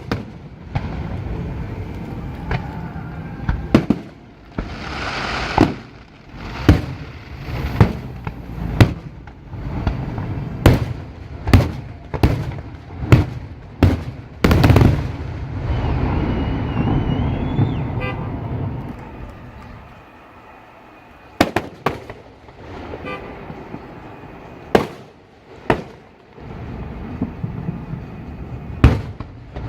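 Fireworks display: aerial shells bursting in a rapid irregular string of sharp booms, with a lull of a few seconds past the middle before more bursts. A faint rising whistle runs a couple of seconds past the middle.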